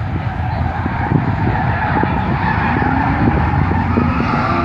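Camaro being driven hard around an autocross cone course, engine running with tyres skidding, its engine note rising about two seconds in.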